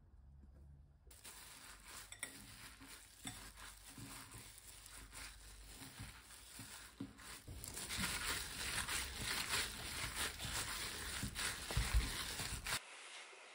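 A gloved hand kneading and squishing minced pork, cabbage and green onion dumpling filling in a glass bowl, with the crinkle of the thin plastic glove. It starts about a second in and gets louder and wetter-sounding in the second half as the mixing grows vigorous.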